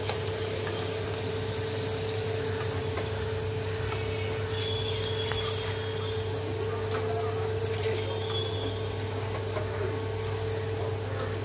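Poha (flattened rice) deep-frying in hot oil in a kadai, a steady sizzling hiss, with light clicks of the steel strainer ladle against the pan. A steady low hum runs underneath.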